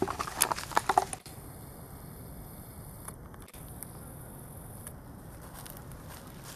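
Dry leaf litter crackling in a quick run of sharp clicks for about a second, then only a steady faint outdoor hiss.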